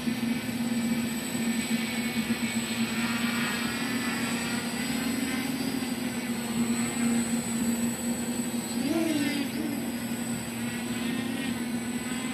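Quadcopter's electric motors and propellers buzzing steadily in flight, the pitch wavering up and down about nine seconds in as the motor speeds shift. The craft shows a yaw motion that its flier is unsure is normal for a NAZA-controlled quad.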